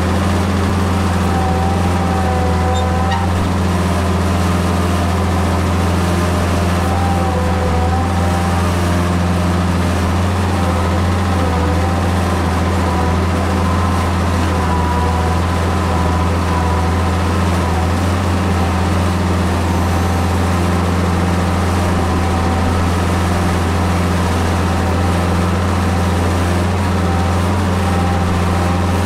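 International Harvester Hydrostatic tractor engine running steadily at working speed while its front-end loader carries composted manure. A thin, faint whine wavers a little in pitch above the engine note.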